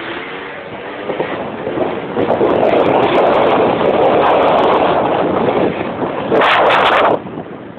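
Motor scooter engines running at speed, largely buried under heavy wind noise rushing over the microphone, with a loud burst of rushing noise about six and a half seconds in.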